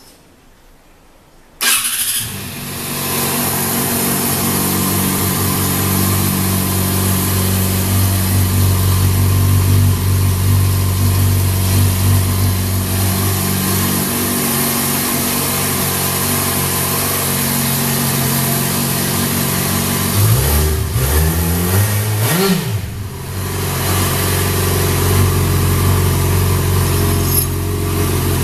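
Yamaha XJ6-F's 600 cc inline-four starting about a second and a half in and settling into a steady idle through a Mivv dual slip-on exhaust on the stock headers. A little over twenty seconds in it is blipped twice, the revs rising and falling quickly, before it drops back to idle.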